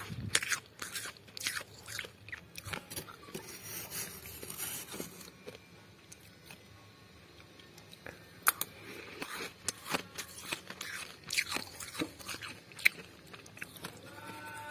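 Soft, dry freezer frost being crunched in a run of irregular crisp crunches. They come in clusters, with a quieter spell in the middle and the sharpest crunches in the second half.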